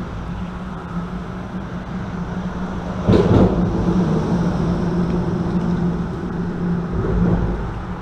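Traffic on the bridge overhead: a steady low hum and rumble, with a sudden thump about three seconds in and another swell near the end.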